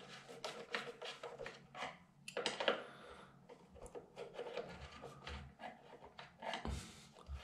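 Screwdriver clicking and scraping in the plastic depth-adjustment inserts of a Grohe SmartControl thermostat's push-buttons. It makes a run of short, irregular clicks and rubs as the press depth of the buttons is being set.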